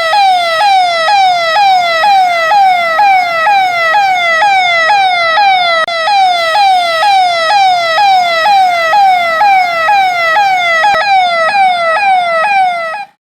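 Electronic siren sounding in a fast, repeating falling sweep, about three cycles a second, sounded as a Covid-19 mask-awareness alert. It cuts off shortly before the end.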